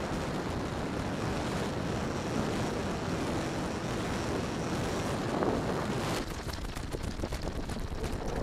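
Wind buffeting the microphone: a steady rushing noise with no clear tone, easing slightly about six seconds in.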